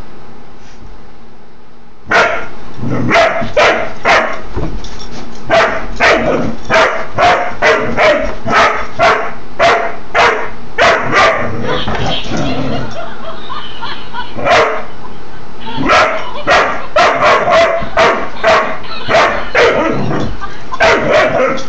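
Doberman pinscher puppy barking over and over in short, sharp barks. The barking starts about two seconds in and has a brief lull around the middle.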